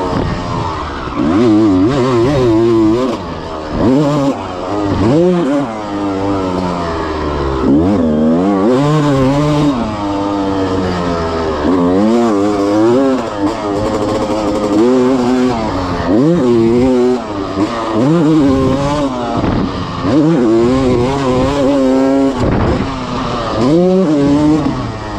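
A 1996 Honda CR250's two-stroke single-cylinder engine is revved hard while being ridden. Its pitch climbs and drops back again and again, every couple of seconds, as the throttle opens and closes and the gears change. The engine is freshly rebuilt and being broken in.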